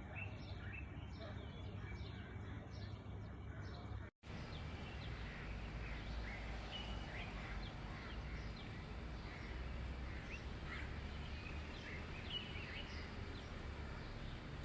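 Dawn chorus of many small birds: short, scattered chirps over a steady low background rumble. The sound drops out completely for a moment about four seconds in, then the chirping resumes.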